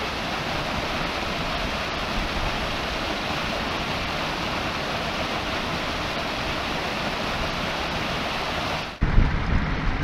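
Small waterfall pouring and splashing into a pool: a steady, even rushing hiss. About a second before the end the sound changes to a smaller cascade with a louder, uneven low rumble.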